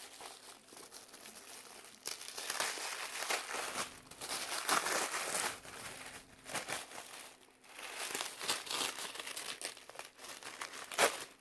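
Paper wrapping crinkling and rustling in uneven bursts as a gift package is unwrapped by hand, with a sharper crackle near the end.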